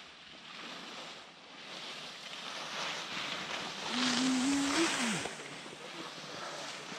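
Skis sliding and scraping over groomed piste snow with wind on the microphone, a steady hiss that grows louder about four seconds in. A brief tone steps up in pitch and then drops away just before five seconds.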